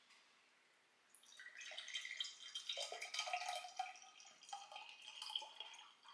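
Orange juice pouring from a carton into a drinking glass, starting about a second in and running for several seconds with an uneven, splashing flow.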